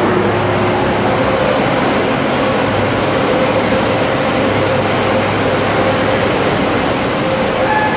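Automatic touchless car wash gantry running over a car: a loud, steady rushing noise with a faint steady hum under it.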